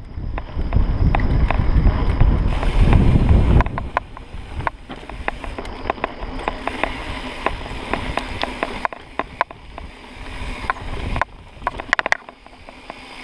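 Mountain bike rolling fast down a dirt trail: tyre and frame rumble with frequent sharp rattles and clicks as it goes over bumps. A heavy low rumble dominates the first four seconds, then eases to a lighter, steadier noise.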